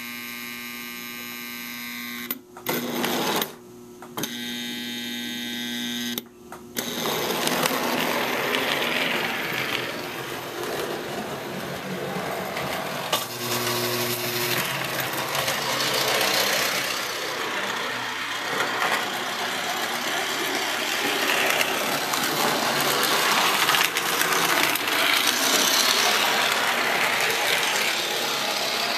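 O gauge model trolley running on three-rail track: its small electric motor gives a steady hum that cuts out briefly three times in the first few seconds. After that comes a louder, even rumble of model train motors and wheels running on the layout's track.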